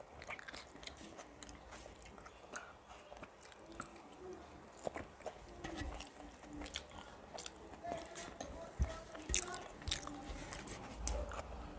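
Close-miked chewing and mouth sounds of a person eating a rice meal with fried vegetables and curry: irregular wet clicks and smacks, denser and louder near the end.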